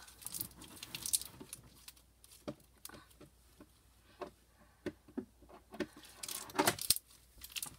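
Clear slime being stretched and squeezed in the hands, giving scattered soft sticky clicks and pops, with a louder cluster near the end.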